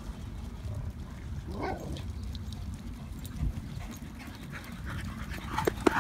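Dogs playing: a short whine that rises and falls about a second and a half in, and a few sharp yips near the end, over a low steady rumble.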